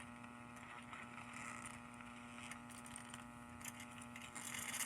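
Vintage alarm clock radio's speaker giving off a faint steady electrical hum and hiss, which grows louder and noisier near the end as the volume comes up.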